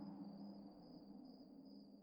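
Crickets chirping in a steady, evenly pulsing trill over a low droning tone that fades away.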